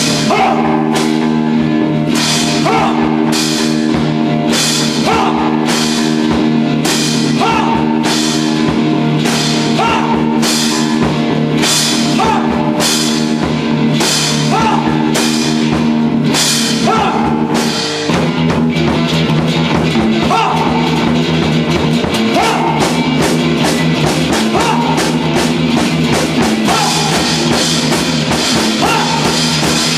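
A rock band playing live, an instrumental break with distorted electric guitar chords over a drum kit, with hard cymbal and snare hits about once a second. About eighteen seconds in the chord changes and the drumming gets busier.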